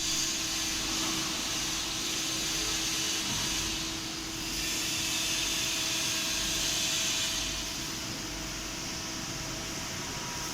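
Hydraulic CNC press brake running: a steady hiss over a faint low hum. The hiss dips briefly about four seconds in and eases off after about seven seconds.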